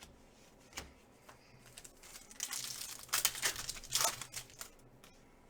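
Plastic foil trading-card pack wrapper being torn open and crinkled by hand, with a single click about a second in and a run of crackling and tearing through the middle.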